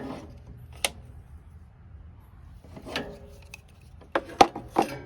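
Jumper cables being handled and clamped on: scattered sharp metal clicks and clanks, with three close together near the end.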